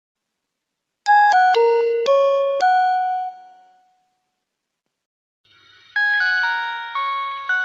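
Two Nokia mobile phone startup jingles. First a bright electronic chime of about five notes, stepping down and then back up and ringing out on the last one. After a pause of about two seconds, a second, fuller melody begins with a soft swell and goes on past the end.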